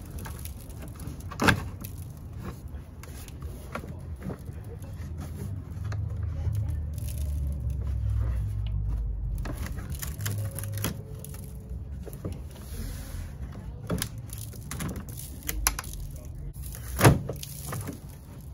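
A plastic engine undercover is being handled and pressed into place under a car, rustling and rubbing against the body. There are two sharp plastic knocks, about one and a half seconds in and near the end, and a low rumbling noise for a few seconds in the middle.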